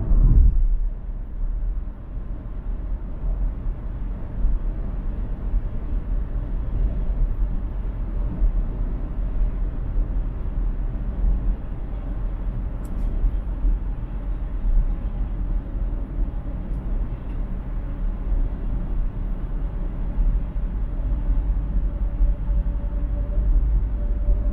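Road noise from a car driving along a freeway: a steady low rumble of tyres and wind, with a brief louder thump at the very start.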